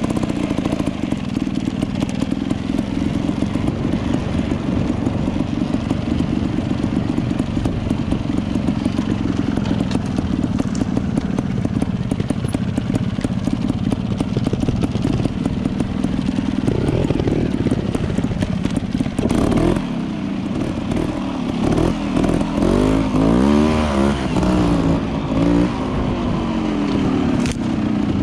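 Dirt bike engine running at a steady throttle, then from about two-thirds of the way through revving up and down repeatedly as the throttle is opened and closed.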